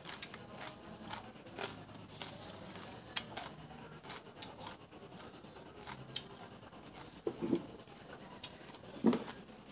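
Scattered soft clicks and scratches of hands picking at food on a plate, with two louder short knocks or clatters near the end over a faint steady high whine.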